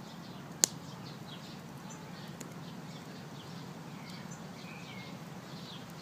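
Small birds chirping throughout over a low steady background noise, with a single sharp crack from the burning wood fire about half a second in.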